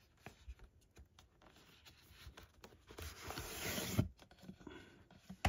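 A hardback book being slid out of a snug cardboard slot in a box set: card rubbing against card for about a second, ending in a sharp knock, with a few faint handling clicks before and after.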